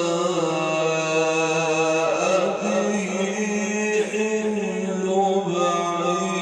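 A man's voice reciting the Quran in a melodic chant, drawing out long ornamented notes that shift pitch a few times.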